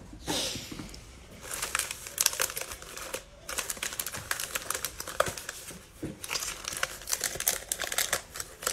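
Plastic wrappers of 2021 Mosaic football cello packs crinkling as a stack of packs is handled and shuffled by hand: rapid crackles, with two brief pauses.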